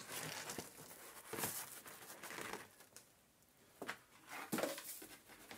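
Light rustling and scattered knocks of hands at work on a bench: a mat being laid under the cut-open refrigerator compressor to catch the metal filings. There is a quiet gap about three seconds in.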